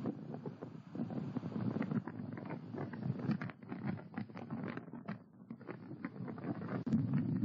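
Wind buffeting an outdoor camera microphone, with scattered ticks and rustles. It eases off briefly about five seconds in and picks up again near the end.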